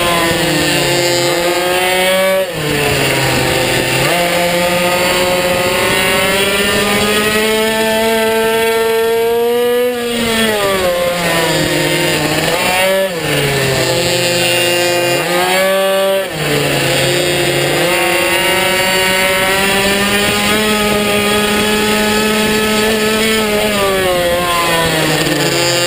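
Minibike engine running at high revs under hard acceleration, its pitch climbing along each straight and dropping sharply about five times as the rider brakes and shuts off into corners.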